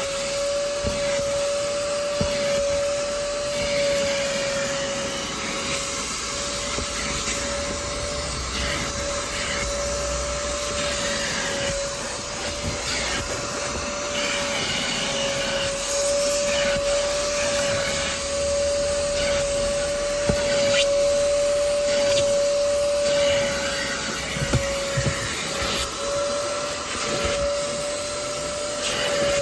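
Kiwi upholstery-washing machine, a wet-extraction vacuum, running steadily with a high motor whine and a rushing suction noise that swells and dips slightly as the nozzle is worked over a car seat.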